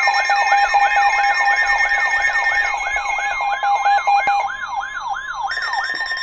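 Electronic emergency alert siren sweeping up and down about three times a second, layered over steady alert tones. Near the end the sweeping stops and only the steady tones continue.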